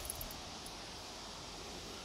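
Steady, quiet outdoor hiss with no distinct event: background riverside ambience.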